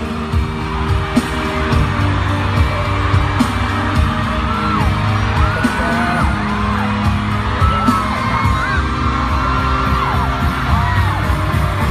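Loud pop music with a heavy, steady beat, with high voices gliding up and down over it.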